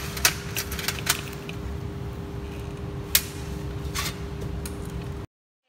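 Scattered sharp clicks of keys pressed on a handheld LS ACB OCR tester, over a steady low hum and rumble; all sound cuts off abruptly near the end.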